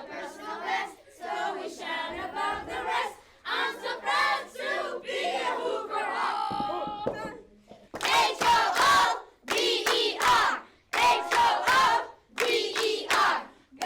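A group of children's voices in unison, singing at first, then from about eight seconds in calling out a series of loud phrases with short pauses between them.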